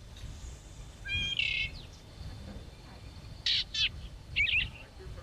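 Short calls from a small bird: one pitched call about a second in, then two quick down-sweeping calls and a brief chatter near the end.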